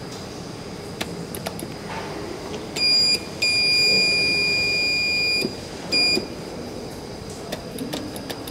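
Elevator hall call button buzzer sounding a steady high-pitched beep three times as the button is pressed: a short beep, a long one of about two seconds, then another short one.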